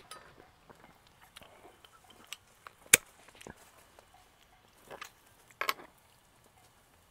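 Sparse handling clicks and knocks at a table as a glass beer bottle is picked up and held. One sharp click about three seconds in is the loudest sound, with a few softer knocks a couple of seconds later.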